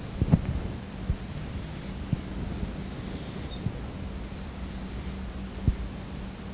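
Dry-erase marker strokes on a whiteboard: a series of short, scratchy squeaks as lines are drawn for a box, then a few shorter strokes about two-thirds through as a letter is written inside it.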